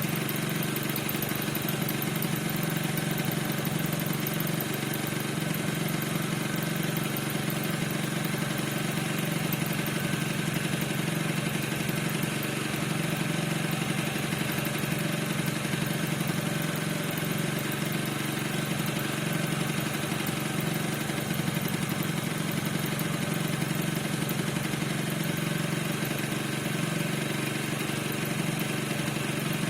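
NRG 50 scooter's 50 cc two-stroke engine idling steadily. The owner reports that it squeaks and does not know why.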